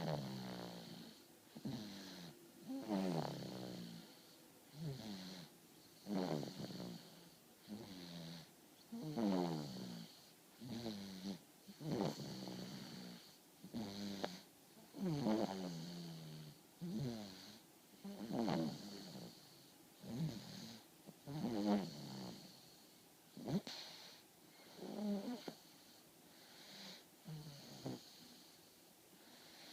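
A man snoring in his sleep, one snore every one and a half to two seconds, each with a buzzing pitch that slides downward.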